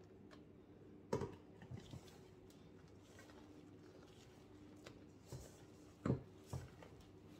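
Spatula folding whipped cream into thick chocolate cake batter in a stainless-steel mixing bowl: soft scraping and squelching, with two louder knocks against the bowl, about a second in and about six seconds in, over a faint steady hum.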